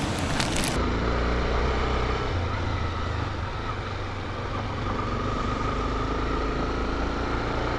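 Motorcycle engine running steadily under way, heard from on board as a low, even rumble, after a few sharp clicks in the first second.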